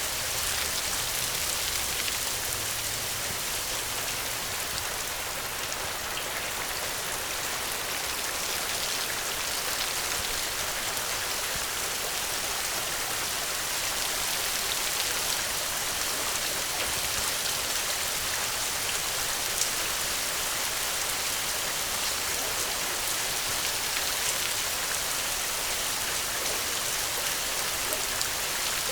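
Steady rain falling, an even hiss of many fine drops pattering on a surface, with faint individual drop ticks now and then.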